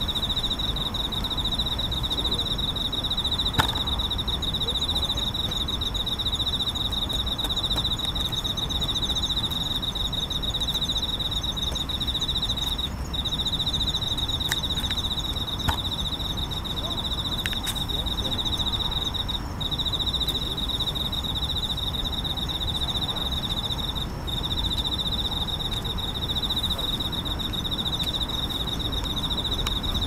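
Bell crickets (suzumushi) singing: a steady, high, continuous trill that breaks off only briefly a few times, with fainter, higher-pitched insect song behind it and a low steady rumble underneath.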